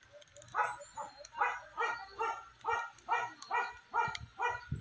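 An animal calling over and over at a steady pace, short calls about two and a half times a second, starting about half a second in.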